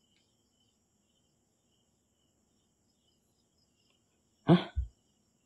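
Faint chirping of crickets. About four and a half seconds in comes a short, sharp sound, followed quickly by a second, lower one.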